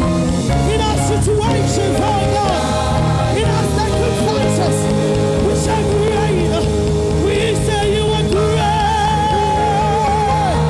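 Gospel worship music: a voice sings long, wavering notes over a band with steady bass and cymbal hits.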